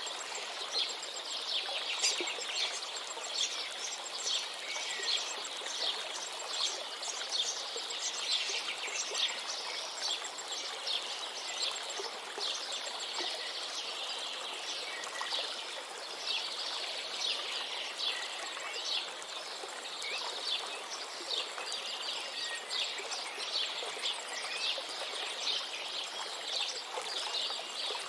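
Many small birds chirping and twittering without pause over the steady rush of a river.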